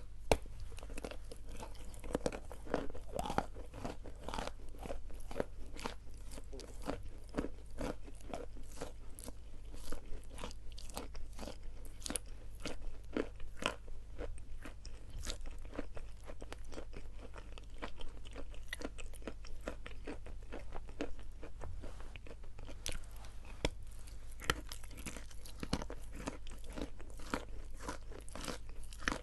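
Close-up crunching and chewing of sawn Khrapovsky chalk coated in paste: many sharp crunches in quick succession, over a steady low hum.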